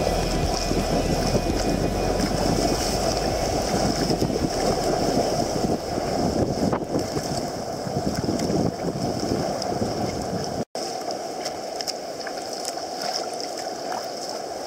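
Choppy sea water sloshing and splashing around a sea kayak's bow, with wind rumbling on the deck-mounted camera's microphone. The sound cuts out for an instant about eleven seconds in.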